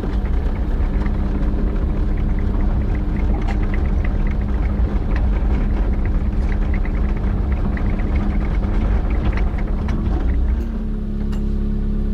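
Excavator's diesel engine running at idle under hydraulic work, a steady engine hum over a heavy rumble with a stream of small rattles and scrapes as the blade drags dirt across a filled hole. About ten seconds in the rumble and rattling ease, leaving a steadier engine hum.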